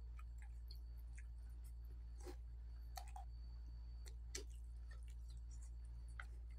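Hand-eating at close range: a few scattered soft clicks and smacks of chewing, and of fingers picking rice and food off a banana leaf, over a steady low hum.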